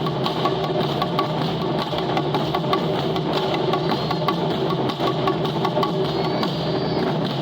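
Japanese taiko drums played in a fast, steady rhythm of many strikes.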